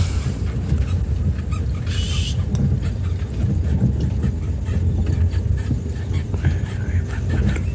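Ambulance driving slowly over a rough, bad road, heard from inside: a steady low rumble with frequent small knocks and rattles, and a short high squeak about two seconds in.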